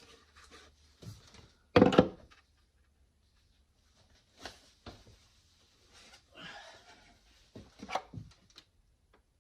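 Knocks and clatter of things being handled, with one loud thunk about two seconds in, a few lighter knocks later and a short stretch of rustling.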